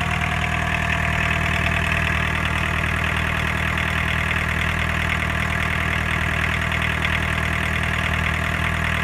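VW 1.6-litre four-cylinder diesel engine idling steadily, freshly rebuilt with its injection pump timing newly set.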